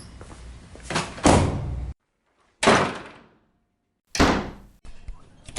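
A door slammed shut three times: a double bang about a second in, then two single slams, each dying away quickly, with dead silence between them.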